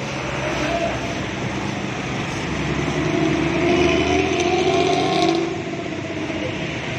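A coach pulling away and driving off on a rain-soaked road: its engine note rises as it accelerates, loudest about halfway through, over the steady hiss of rain and wet tyres.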